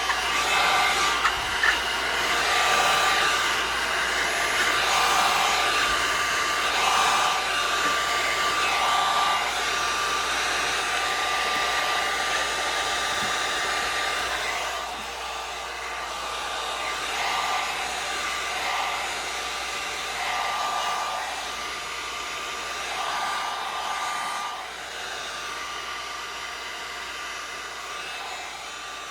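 Handheld hot-air blower running steadily, with a thin fan whine and a rush of air that swells and eases every second or two as it is worked over the vinyl tint film to heat and shape it. It grows gradually quieter over the second half.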